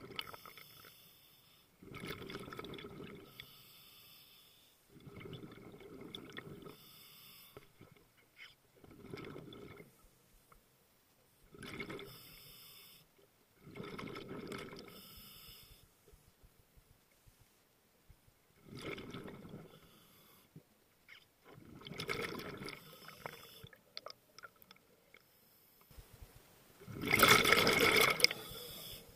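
Scuba diver's regulator breathing heard underwater: about nine bursts of exhaust bubbles, one with each breath out every few seconds, the last burst near the end the loudest.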